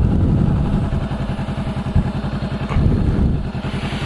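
Honda motorcycle with a short aftermarket exhaust, its engine running at low revs with an evenly pulsing exhaust note.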